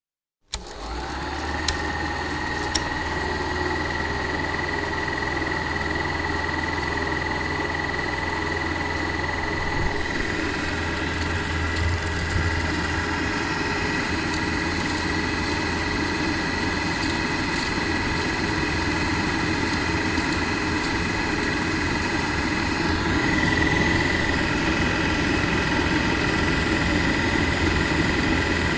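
Film projector running: a steady mechanical whir with a high whine and a low hum, starting abruptly just after the beginning, with a couple of sharp clicks in the first few seconds.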